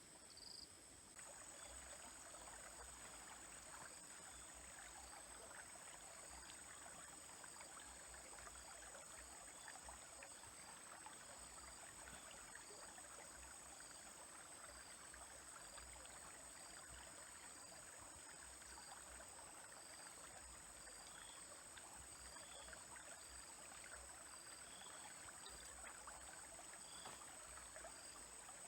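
Faint trickling of a small stream over stones, beginning about a second in, under a steady high insect trill with soft chirps repeating every second or two.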